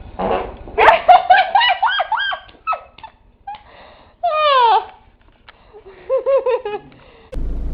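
A woman farting: a rapid run of high, squeaky, sputtering farts about a second in, a longer falling squeak about four seconds in, and a few shorter squeaky ones near the end.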